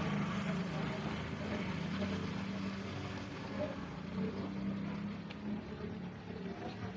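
A steady low engine drone, like a motor vehicle idling, with a few faint clicks.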